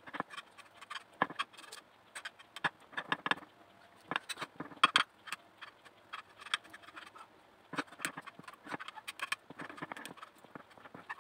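Spatula spreading whipped cream across a glass baking dish: irregular soft scrapes and short clicks as the blade smears the cream and knocks against the glass.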